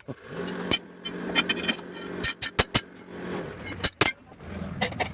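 A run of irregular sharp knocks, about eight of them, some in quick pairs, typical of hammer blows on iron in bullock cart wheel repair, over a low steady hum.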